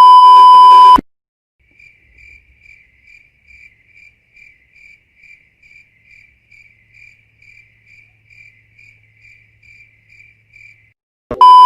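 A loud, steady, high censor-style beep lasting about a second, then crickets chirping faintly and evenly, about two chirps a second, the meme 'crickets' of awkward silence. Near the end the same loud beep sounds again.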